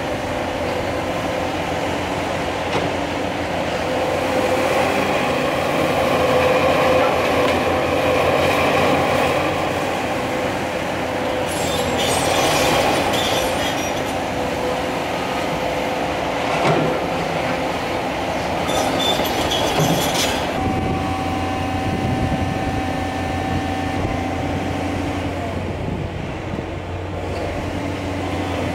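Cat 336 Next Generation hydraulic excavator working: its diesel engine runs steadily under load while its steel tracks clank and squeal as it travels. There are louder bursts of rattling clatter about twelve and nineteen seconds in, and a steady whine from about twenty seconds in.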